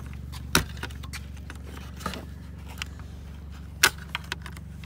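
A metal pick tool prying at the plastic locking tabs of a car dash air vent: a few sharp plastic clicks, the loudest about half a second in and just before the end, over a steady low hum.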